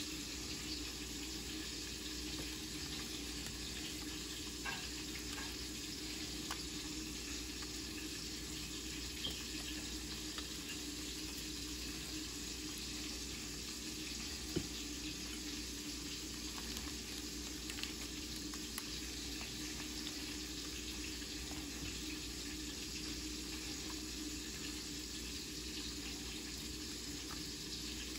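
Steady rushing hiss with a low hum under it, like kitchen background noise, and a few faint light clicks, one sharper tick about halfway through.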